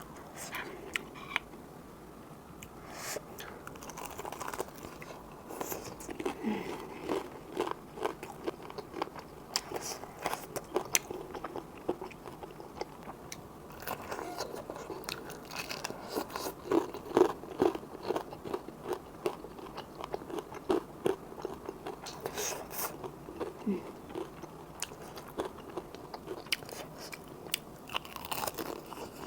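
Close-miked eating of cup ramen noodles: steady chewing with many quick mouth clicks and smacks.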